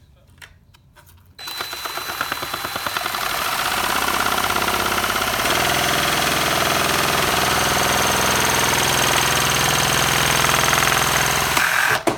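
Power drill running a LEGO chainsaw's crankshaft mechanism, the plastic parts rattling fast and evenly. It starts about a second and a half in, builds up over a couple of seconds, runs steadily, and stops abruptly just before the end.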